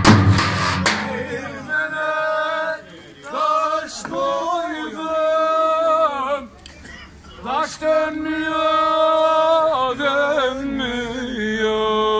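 A man singing unaccompanied in long held, wavering notes, in several phrases with short pauses between them. Davul drum and zurna music cuts off about a second in.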